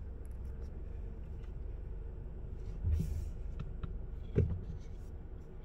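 Mercedes C-Class engine idling, a steady low hum heard from inside the cabin. Two brief knocks come about a second and a half apart, partway through.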